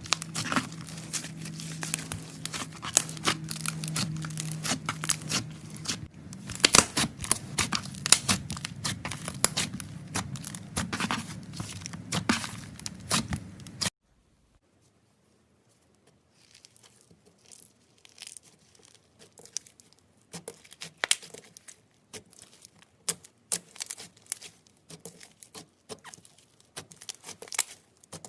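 Slime being squeezed and worked by hand, giving dense wet crackling and popping clicks over a low hum for the first few seconds. About halfway through it cuts out for a moment of silence, then a sparser run of softer crackles and pops follows.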